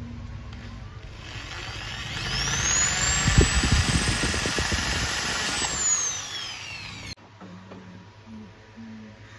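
Bosch power drill spinning up to a high whine as it drills into a chrome tailgate trim, with a rattle at its loudest point about three seconds in. The whine then falls in pitch as the drill winds down and cuts off abruptly about seven seconds in.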